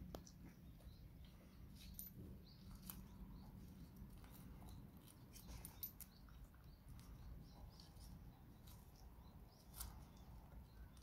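Dog biting and chewing a crisp napa cabbage leaf: faint, scattered crunches and snips, a few every couple of seconds.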